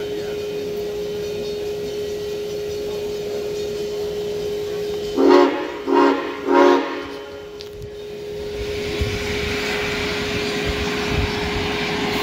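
Santa Fe 2926 steam locomotive's whistle sounding three short blasts about five seconds in, over a steady hum; a hiss builds up after the blasts.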